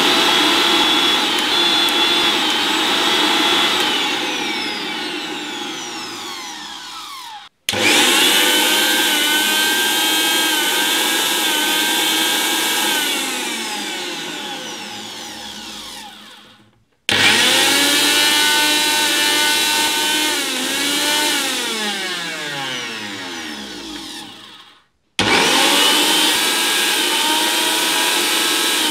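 Prestige Regal 750 W mixer grinder running with empty jars, a loud high motor whine. It happens four times: each run holds its pitch, then winds down falling in pitch, and breaks off suddenly about every eight seconds.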